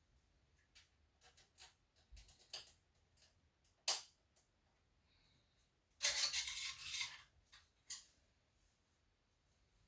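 Scattered clicks and taps of small hard objects being handled, with a short rustling scrape about six seconds in.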